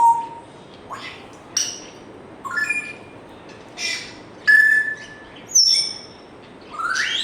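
African grey parrot whistling and chirping: a string of short calls about once a second, some sliding up in pitch, with one clear whistle held steady for about half a second near the middle.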